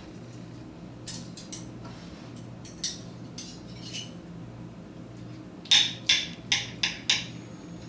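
Knife and fork clinking and scraping against a ceramic plate while cutting food: scattered light clinks in the first half, then a quick run of five sharper clinks near the end. A faint steady low hum underneath.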